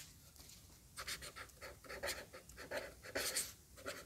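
Red felt-tip marker writing on paper: a string of short, quick strokes, starting about a second in.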